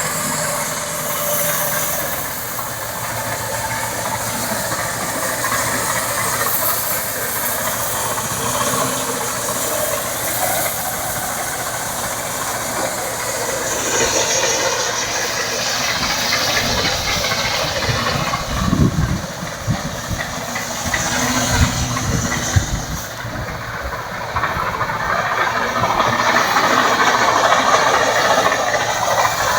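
Combine harvester running steadily with a loud, hissing machine noise, with a stretch of irregular low rumbling bursts past the middle.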